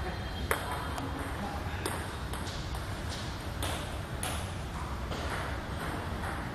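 Table tennis rally: a plastic ball clicking off bats and table, sharp ticks at an uneven pace of about one or two a second over a steady low room hum.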